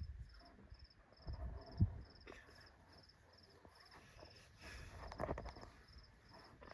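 Crickets chirping steadily in a regular high pulse, about two and a half chirps a second, with low scuffing sounds and a single low thump about two seconds in.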